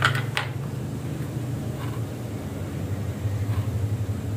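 Steady low rumble of a gas stove burner under a wok of simmering soup. Near the start there are two light clicks of a spoon against a small glass jar of MSG.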